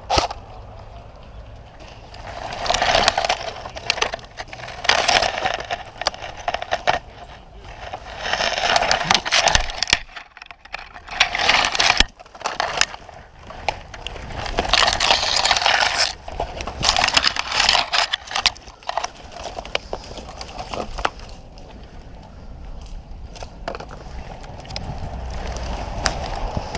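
Irregular bursts of crunching and rustling, each about a second long, from brush and dry leaves underfoot as a player moves slowly through undergrowth, with a few sharp snaps between.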